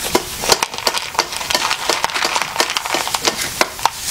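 A small plastic treat box being fumbled at and opened by hand, a run of irregular small clicks and crackles of plastic.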